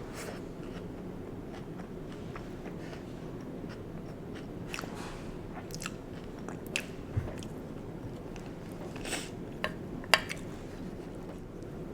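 Close-miked chewing and mouth sounds of someone eating stuffed sweet potato, with scattered short wet clicks, the sharpest a little after ten seconds, over a steady low hum.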